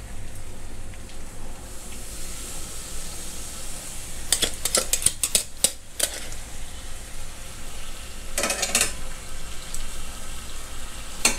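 Seasoned glass noodles sizzling in a hot iron pot over low heat, with sharp metal clicks of tongs against the pot in two short spells, about four seconds in and again near nine seconds.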